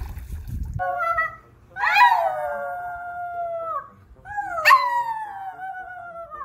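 A small white dog howling: two long howls, each held and then sliding down in pitch, the first beginning about two seconds in.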